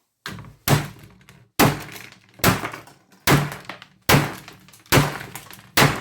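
Repeated hard knocks, about one a second, as RAM sticks that would not fit are forced down into the motherboard's memory slots by striking them.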